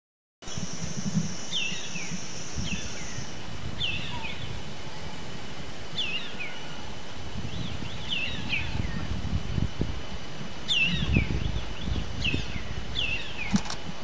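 Black baza calling: short, high whistled notes that fall in pitch, given about a dozen times at irregular intervals, some in quick pairs, starting about half a second in. A low rumble runs beneath.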